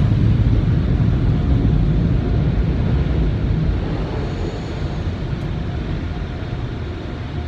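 Steady low roar of automatic car wash machinery heard from inside the car's cabin, easing off somewhat in the second half.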